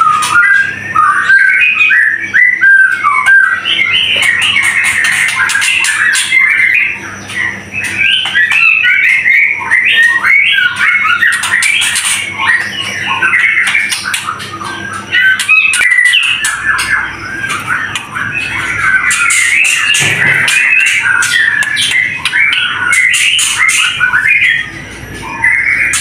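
White-rumped shama (murai batu) singing: a continuous song of rapid, varied whistled and chattering phrases with no pauses.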